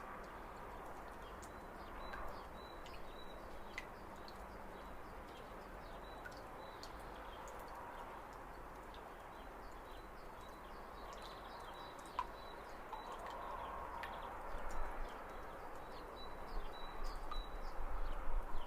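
Spring outdoor ambience: small birds chirping in short, high notes over a steady background hiss, with louder, uneven bumps in the last few seconds.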